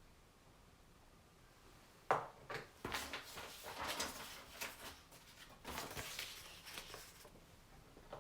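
Faint handling noises: a series of rustles and light knocks, starting about two seconds in after near silence.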